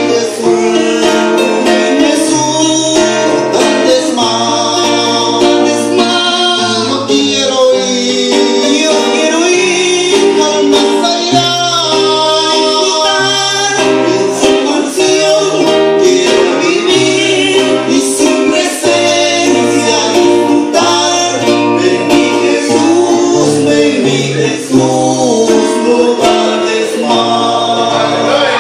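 Two acoustic guitars strummed in a steady rhythm, accompanying men singing a worship song into microphones.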